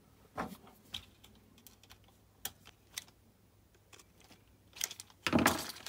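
Scattered light clicks and taps of a small screwdriver and hard plastic RC-car chassis parts being handled while a small screw is driven in to clamp the steering servo, with a louder clatter of handling near the end.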